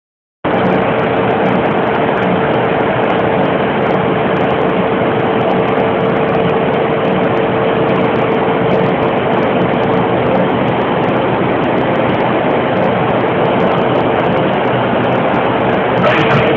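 2PLF double-roller crusher test-running with no material fed, its electric drive motors and rollers giving a loud, steady hum with one constant tone. It starts abruptly about half a second in.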